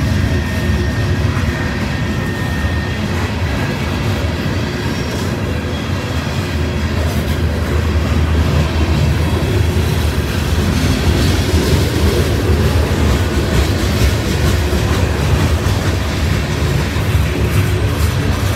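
Loaded coal hopper cars of a freight train rolling past: a steady rumble and clatter of steel wheels on the rails, with a thin wheel squeal in the first few seconds.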